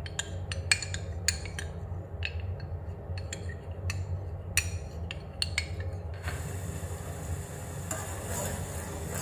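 Metal spoon stirring a cornstarch slurry in a small drinking glass, clinking irregularly against the glass. About six seconds in, this gives way to a steady hiss as a spoon stirs palm-sugar syrup cooking in a saucepan.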